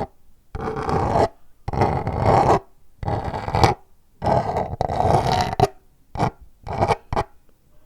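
Scratching and rubbing on paper or cardboard, in about six separate strokes of uneven length with short pauses between, the longest just past the middle.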